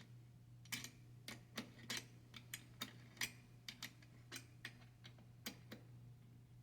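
Faint, irregular metal clicks of a 10 mm wrench being worked on a nut as it is tightened to lock the frame latch adjustment.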